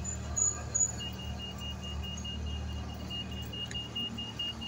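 UK pedestrian crossing signal beeping rapidly in a high, even tone from about a second in, the audible sign that the green man is showing and it is safe to cross. Steady traffic hum underneath.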